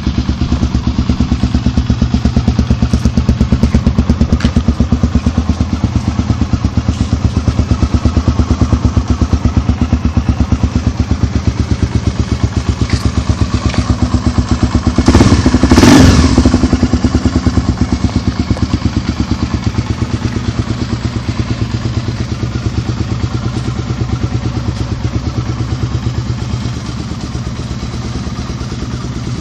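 Honda XR Tornado's single-cylinder four-stroke engine idling with an even, steady pulse. It goes briefly louder about halfway through, then settles back to idle.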